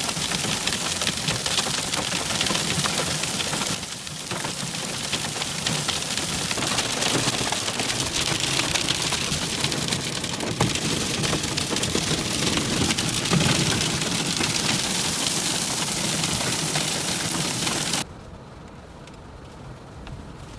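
Heavy rain pouring, with a dense patter of drops striking a surface. It stops abruptly near the end, leaving only a faint background.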